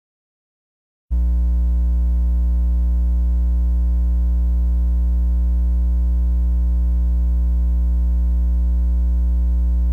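Loud, steady electrical mains hum in the audio feed, a low hum with a buzzy stack of overtones. It cuts in suddenly about a second in after total silence and holds unchanged.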